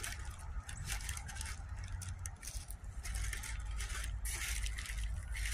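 Irregular scraping and crinkling as hands press and rub a bent metal license plate lying on tissue paper, working it back flat, over a low steady rumble.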